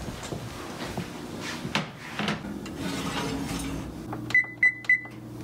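Clatter and knocks of a glass baking dish being handled at the oven, then three short, high electronic beeps from an electric range's control panel as its buttons are pressed to set the bake timer.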